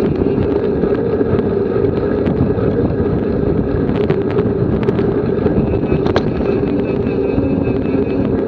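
Wind rushing over the microphone of an action camera on a moving bicycle: a loud, steady rush with a constant hum underneath and a few sharp clicks near the middle.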